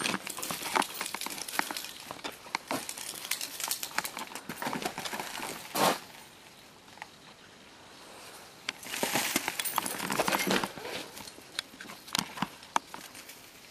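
Footsteps crunching on gravel and sand in irregular bursts, with a quieter stretch of a couple of seconds about halfway through.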